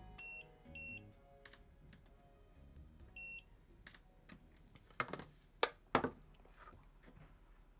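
Soft background music with short beeping notes for the first few seconds, then a few sharp clatters about five to six seconds in as hand tools are set down on the bench.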